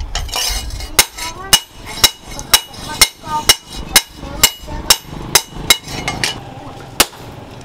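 Hand hammer striking a leaf-spring steel cleaver blade on a small post anvil: sharp metallic blows about two a second, with a faint ring between them. The blows thin out near the end.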